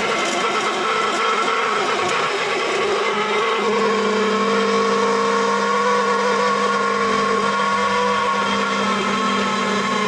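Key-duplicating machine running, its motor-driven end-mill cutter milling the cuts into a car key blank. A steady whine that wavers slightly in pitch as the cutter works along the blade.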